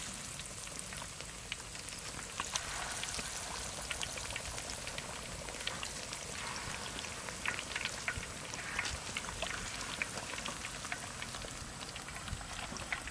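Hot oil in a large wok sizzling steadily with scattered crackles as batter-coated chicken legs deep-fry and more pieces are dropped in.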